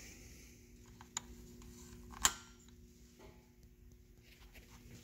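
A few faint clicks, the loudest a little over two seconds in, from switching on a portable battery booster, over a faint steady hum.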